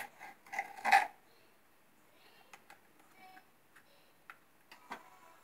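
Kitchen knife knocking on a wooden cutting board as a yellow bell pepper is sliced: a few louder knocks in the first second, then sparse faint ticks.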